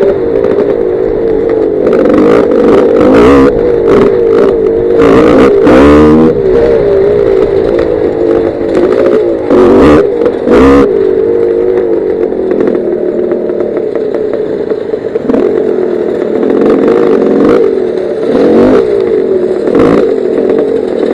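Gas Gas 250 dirt bike engine, heard from the rider's helmet, revving up and down continuously while riding a rough trail, with knocks and clatter from the bumps.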